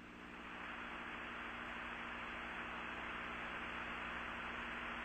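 Steady hiss with a low electrical hum, the background noise of an old analogue broadcast recording, between announcements.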